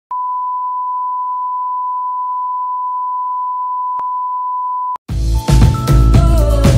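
A TV test-pattern reference tone: one steady beep at a single pitch, held for about five seconds with a faint click near the end, then cut off abruptly. Music with a steady beat starts right after.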